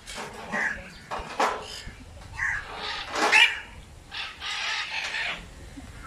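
Flock of macaws squawking: a string of short harsh calls one after another, the loudest about three seconds in.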